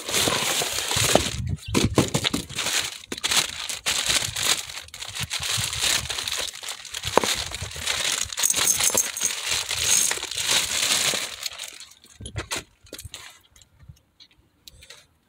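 Plastic bag crinkling and cardboard box rustling as a new CV axle is unpacked, with small knocks of the part against the packaging. The rustling stops about twelve seconds in, leaving a few light clicks.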